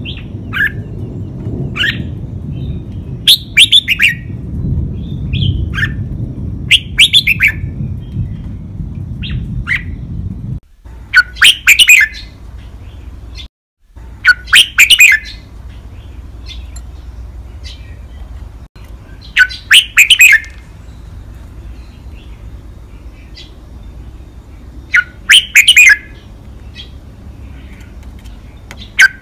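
Red-whiskered bulbul singing loud, clear five-syllable song phrases, repeated every few seconds, with softer single chirps in between. In the first ten seconds there is a low rumble in the background.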